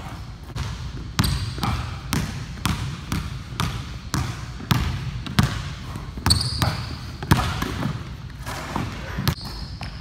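Basketball dribbled on a hardwood gym floor, about two bounces a second, with a few short, sharp squeaks of sneakers on the floor.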